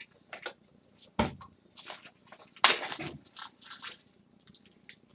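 Irregular small clicks, taps and rustles of objects being handled, with a sharp knock about a second in and a longer, louder rustle a little past the middle.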